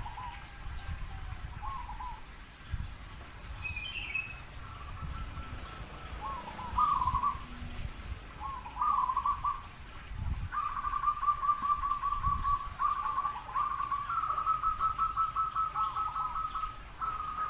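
Zebra dove (perkutut) cooing: short rolling phrases at first, then longer rapid trilled coos repeated one after another from about ten seconds in. Faint high chirps from another bird and a few low thumps are also heard.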